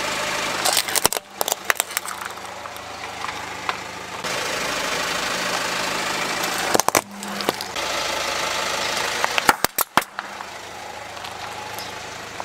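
Car engine idling while a tyre rolls over small plastic toys, crushing them with clusters of sharp cracks and snaps about a second in, around seven seconds and just before ten seconds, the last as hollow plastic balls are flattened.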